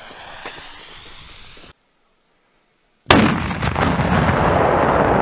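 A lit firework fuse hisses and sparks, then after a short dead gap one very loud firework explosion goes off with a sharp crack, followed by a long rumble that fades slowly.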